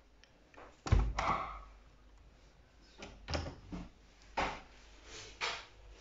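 Door of a Rommer Nautilus front-loading washing machine being opened: a sharp thunk about a second in, then a few softer knocks and clicks.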